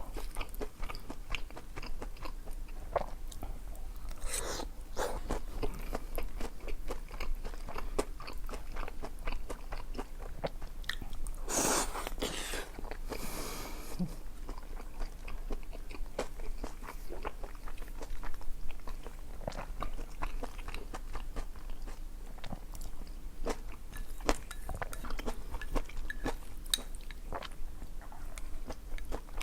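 Close-miked eating: biting and chewing, a steady run of small wet clicks, with a longer, louder noisy stretch about twelve seconds in.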